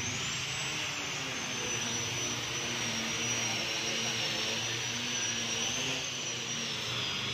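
A steady machine drone with a high whine that wavers slightly in pitch, over a hiss.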